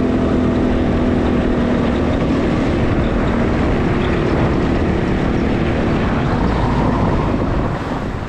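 Four-wheeler (ATV) engine running at a steady pitch while riding; the sound eases off slightly near the end.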